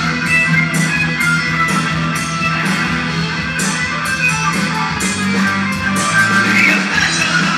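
Live hard rock band playing an instrumental passage: electric guitar, bass guitar and drums with cymbal strikes.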